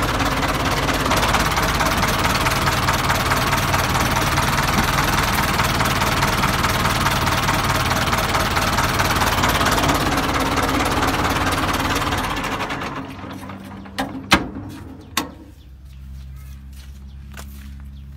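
Ford 6610 tractor's four-cylinder diesel engine running loud and steady, then falling away about twelve seconds in. A few sharp knocks follow, and a low steady hum is left near the end.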